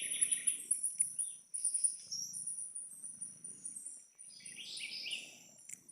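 Southern house wren (garrincha) singing, a burst of song at the start and another about four and a half seconds in, over a continuous high-pitched insect trill in the forest.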